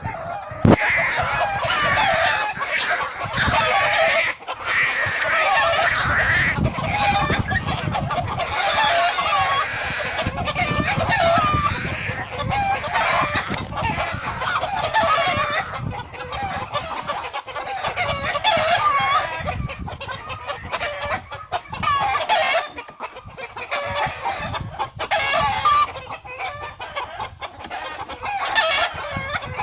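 Chickens squawking and clucking without a break, many calls overlapping, louder through the first half and thinning somewhat after about 16 seconds: a hen's alarm and defence calls against a hawk.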